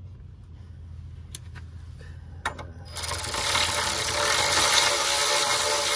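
Cordless ratchet spinning the ball joint nut back onto its stud, threaded on in reverse: a steady buzzing run with fast clicking that starts about three seconds in and lasts several seconds, after a few light clicks of the tool being set in place.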